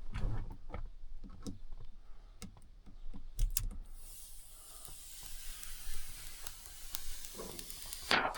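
Small clicks and taps of fingers working at the edge of a display screen, then, about halfway through, a steady hiss for about four seconds as the plastic screen protector film is peeled off the display.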